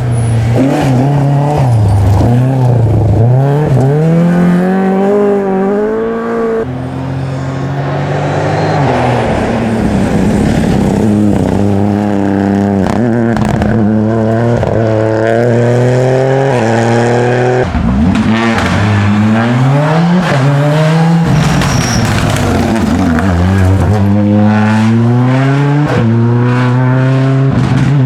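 Rally car engine under hard acceleration, revs climbing steeply and dropping sharply at each gear change, over and over.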